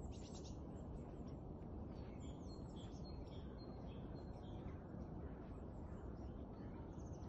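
Small birds chirping over and over in short, high, falling calls, over a steady low background rumble of outdoor noise.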